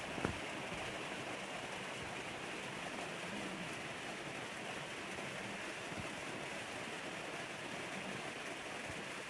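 Waterfall of the Cupira River falling, a steady rushing of water. A short knock sounds just after the start.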